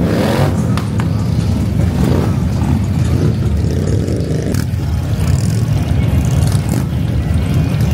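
Motorcycle engines running with a loud, steady low rumble.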